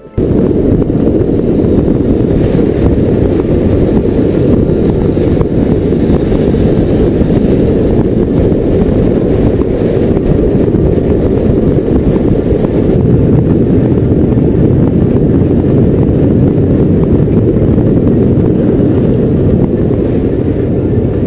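Motorcycle riding heard from a camera mounted on the bike: a loud, steady rumble of wind on the microphone mixed with the engine running, with no clear engine pitch standing out.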